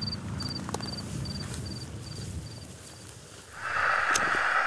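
A cricket chirping in short trills of three or four quick pulses, a couple of chirps a second, fading out about three seconds in. Near the end a steady hiss sets in suddenly.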